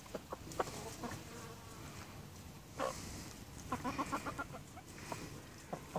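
Hens pecking at a pile of spinach leaves, with scattered sharp pecking ticks, and a quick run of soft clucks about four seconds in.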